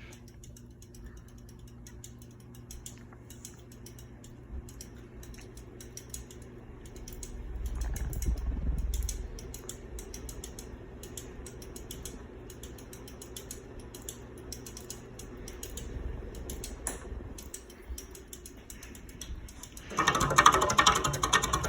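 Casablanca Four Seasons III ceiling fan running on high in reverse: a steady low motor hum with fast mechanical clicking. Near the end a loud rubbing, scraping noise comes in.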